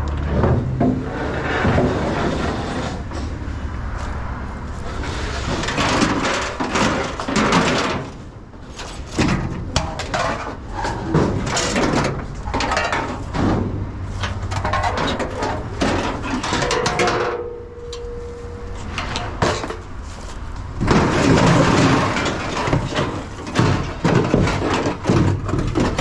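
Scrap car doors and fenders being hauled out of a pile of body panels, a long run of metal clanks, bangs and scrapes.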